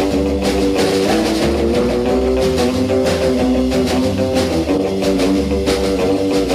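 Rock music with guitar and a drum beat.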